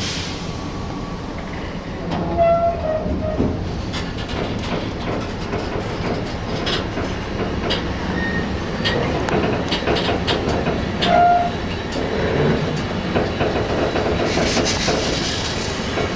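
A train rolling along the track, its wheels clicking over rail joints with a steady rumble. Twice a short high note sounds over it.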